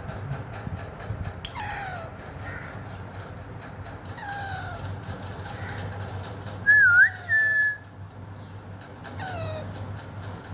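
Pet green parakeet calling: short falling calls every couple of seconds, and a little past halfway one loud, clear whistle of two notes, the first twisting down and up, the second held level.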